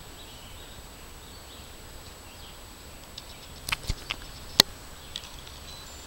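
Footsteps on rocks and leaf litter: a short cluster of sharp knocks and scuffs a little past the middle, one much louder than the rest, over a low background hiss.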